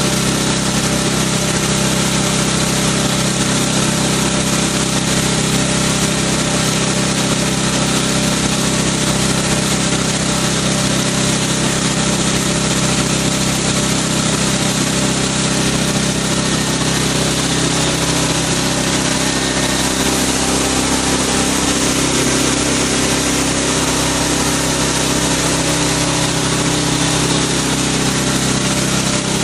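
Mist-spraying machine running steadily: a low motor or pump hum under a loud, even hiss of fine spray forced from its nozzle.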